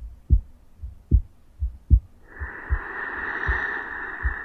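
Lulla Doll's sound box playing its recording of a real heartbeat and breathing. Soft low heartbeat thumps come in lub-dub pairs a little under once a second, and one long, slow breath begins about halfway through.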